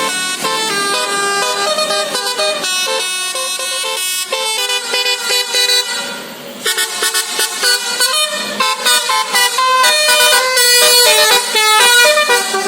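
Bus's basuri telolet musical air horn playing a tune in quick stepped notes, with a short break about six seconds in.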